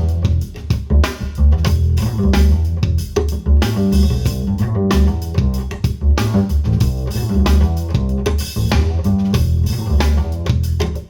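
Instrumental band music with guitar, bass guitar and drum kit, played back through Monitor Audio Gold 500 6G loudspeakers.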